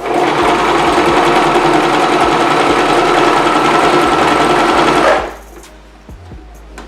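Singer Promise 2 domestic sewing machine running at a steady speed, stitching for about five seconds, then stopping abruptly.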